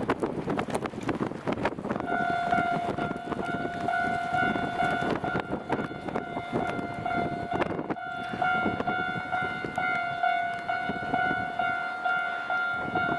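Japanese level-crossing warning bell starting about two seconds in and then ringing its repeating electronic 'kan-kan' tone, with a short break near the middle. It sounds over a loud steady rumble, and the first seconds before the bell hold a burst of knocks.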